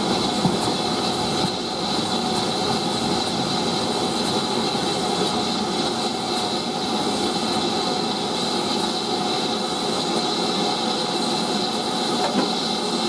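Steam train hauled by BR Standard Class 4 2-6-4T tank engine No. 80151 running steadily along the line, heard close beside the locomotive: a continuous rumble and clatter of wheels on rails, with light clicks now and then.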